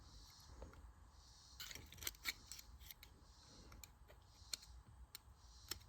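Faint clicks and light taps from small carburetor parts being handled, a few close together about two seconds in and single ones later, with near silence between.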